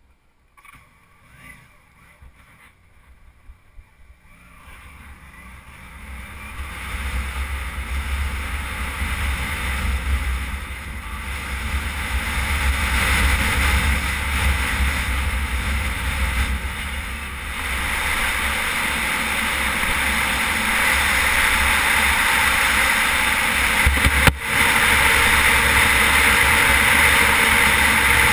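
Wind rushing and buffeting over a helmet camera's microphone as a Suzuki V-Strom 650 dual-sport motorcycle rides a sandy dirt road, its V-twin engine under the wind. Faint at first, it builds over several seconds and then holds loud and steady, with one short dip near the end.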